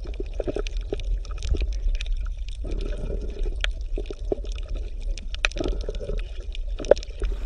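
Underwater ambience on a coral reef: a steady low rumble with many scattered clicks and crackles, and some bubbling.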